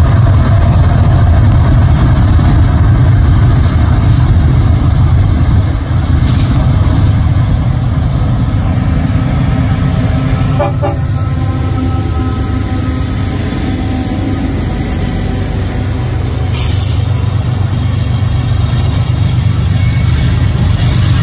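Union Pacific diesel-electric freight locomotives passing close by, with a loud, steady low engine rumble. Faint held tones sound from about halfway through.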